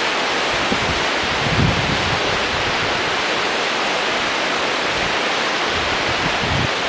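Steady rushing noise of the Rio Grande's whitewater rapids mixed with wind, heard from a camera hanging on a line high above the river. Low gusts of wind buffet the microphone now and then, most clearly about a second and a half in and near the end.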